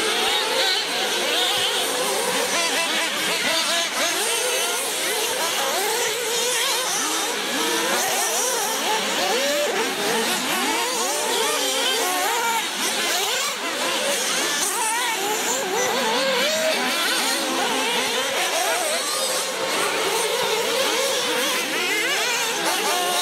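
Several radio-controlled off-road race cars buzzing round together, their small motors revving up and dropping back over and over and overlapping one another.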